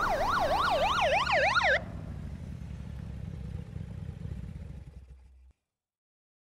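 Emergency vehicle siren on a rapid up-and-down wail, cut off abruptly about two seconds in, leaving a faint low rumble that fades out.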